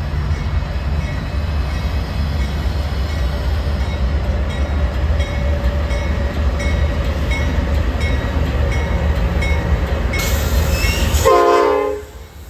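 Slow-moving diesel locomotive rumbling close by, its bell ringing with a regular stroke. Near the end a short, loud horn note sounds, and the heavy rumble then drops away.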